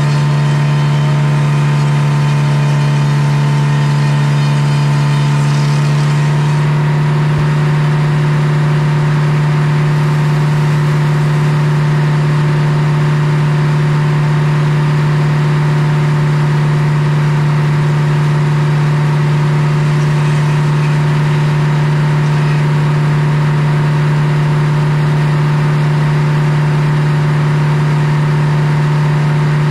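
Circular sawmill running with a loud, steady hum, its big blade cutting through a poplar log until about six seconds in, after which the sound changes and the blade spins on steadily.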